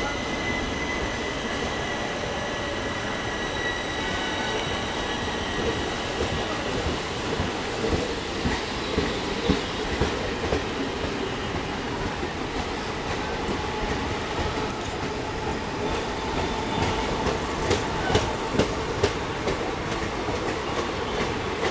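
Indian Railways passenger coaches rolling past as the train pulls out of the station, a steady rumble of wheels on rail. A thin wheel squeal is heard in the first few seconds, and the wheels clack sharply over the track in two runs, about eight seconds in and again near the end.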